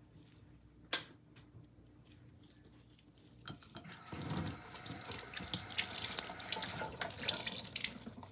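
Kitchen tap running into a stainless steel sink, water splashing over a sponge as it is rinsed and squeezed; the water starts about four seconds in. One sharp knock about a second in.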